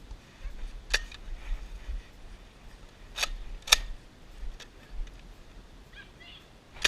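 Nerf blaster clicking: four sharp plastic clicks, one about a second in, two close together past the middle and one at the end.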